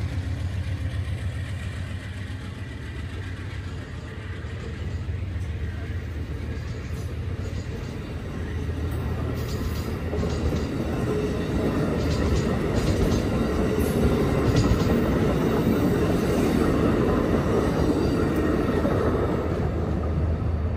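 Amtrak passenger cars rolling past over a road crossing: a steady rumble of steel wheels on the rails, with scattered clicks, growing louder about halfway through.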